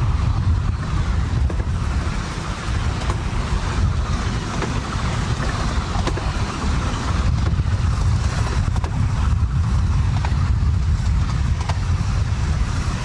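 Wind rumbling heavily on the microphone over a miniature scale Merchant Navy class steam locomotive running towards it with a long train of passenger coaches, with scattered faint clicks.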